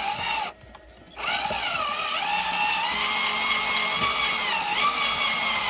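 Electric drill motor whining as it runs: a short run, a brief stop, then a longer run of several seconds whose pitch sags and recovers under load, consistent with driving screws into the door hinges.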